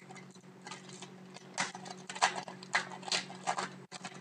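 Foil trading-card pack wrapper crinkling and tearing as it is opened by hand, in a string of sharp, irregular crackles that come thicker in the second half, over a steady low hum.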